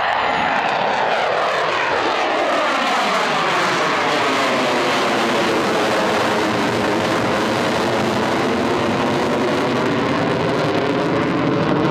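Twin-engine F/A-18 Hornet fighter jet climbing steeply just after takeoff: loud, steady jet noise with a slowly sweeping, phasing whine as the aircraft moves across the sky.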